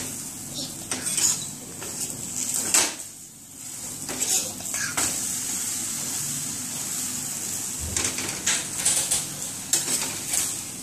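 A stuffed paratha sizzling on a flat griddle (tawa), with a metal spatula scraping and clinking against the pan several times as the bread is pressed down to crisp it.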